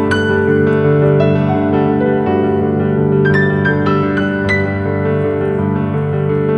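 Background music played on a piano-like keyboard: single struck notes that fade, over held chords.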